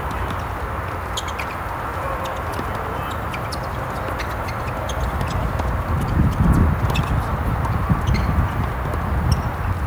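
Tennis rally on a hard court: sharp pops of racket strings striking the ball and the ball bouncing, irregularly spaced a second or more apart, over a steady low rumble.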